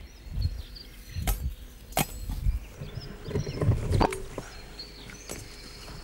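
Bracken ferns rustling as they are pushed through and gathered by hand, with a few sharp snaps or cracks of stems, about one, two and four seconds in.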